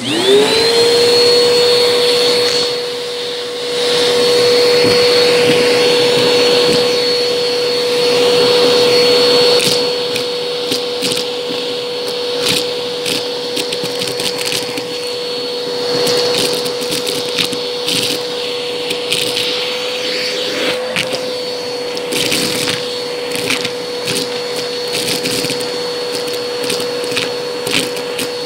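Vacuum cleaner with a crevice tool sucking up dry beans and lint from carpet: the motor spins up at the start and then runs with a steady whine. From about ten seconds in, the beans rattle and crack through the nozzle as a dense stream of sharp clicks, the crunch.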